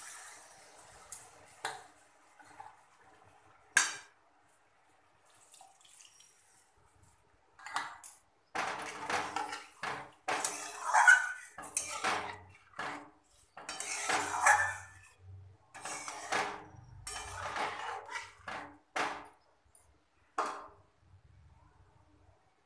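Metal spatula stirring a thin tomato curry in a metal kadai, scraping and knocking against the pan in a long run of strokes through the second half. It opens with a short fading hiss as the water poured onto the hot masala settles, followed by a few single clinks.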